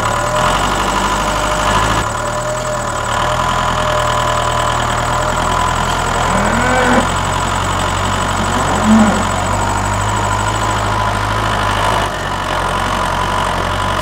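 A tractor engine running steadily, the sound of a model tractor towing a loaded trailer. A few short sliding tones come over it about halfway through.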